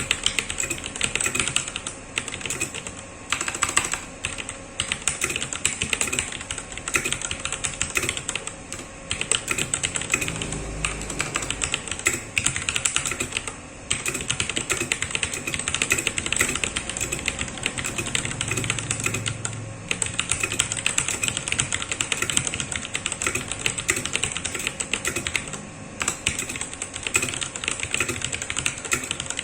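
Rapid, continuous typing on a mechanical keyboard with Cherry MX switches, a dense run of key clicks broken by short pauses every few seconds.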